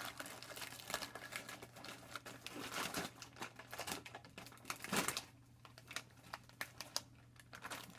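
Plastic packaging crinkling and rustling as a mailer bag is worked open by hand and a squishy in its sealed plastic bag is pulled out: a run of irregular crackles, the loudest about five seconds in.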